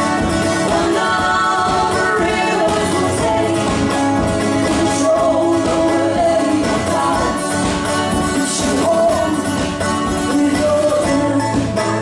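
Live acoustic folk duo: two women singing, with strummed acoustic guitar and mandolin.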